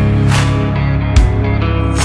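Outro rock music with guitar and a steady drum beat.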